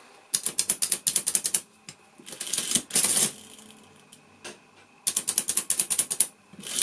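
1971 Olivetti Prima 20 mechanical adding machine being test-cycled twice: each time a quick run of ratcheting clicks, then a denser clatter of the mechanism, with a quiet gap of about two seconds between the two cycles.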